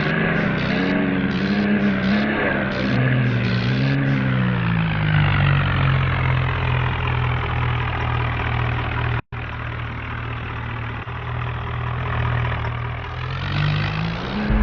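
A vehicle engine revving up and down for the first few seconds, then running at a steady speed. There is a momentary break to silence partway through, and it revs up again near the end.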